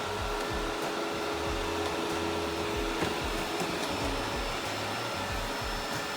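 Robot vacuum cleaner running with a steady whirring hiss, over background music with a low, steady beat.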